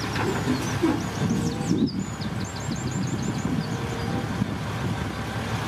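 Dump truck's engine running with its tipper raised while a load of dirt slides out of the back: a low, uneven rumble. Birds chirp in quick runs of high notes over it.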